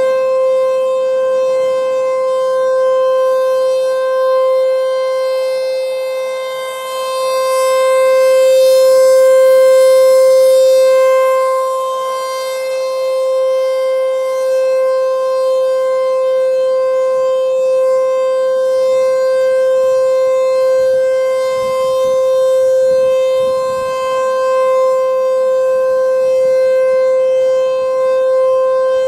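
ASC T-128 electromechanical outdoor warning siren sounding its steady Alert tone during a test. The pitch holds level while the sound swells and fades as the rotating siren head sweeps past, loudest about ten seconds in.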